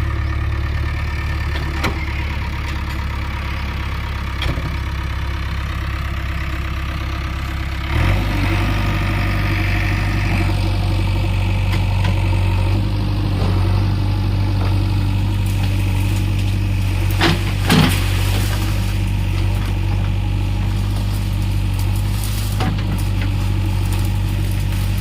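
Diesel engine of a JCB 3DX backhoe loader running steadily. About a third of the way in its note steps up and gets louder, as under load. Two short knocks come a little past the middle.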